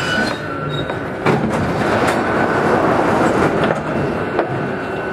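Paris Métro MP05 rubber-tyred train running through a tunnel: steady running noise with a faint whine and a few sharp knocks.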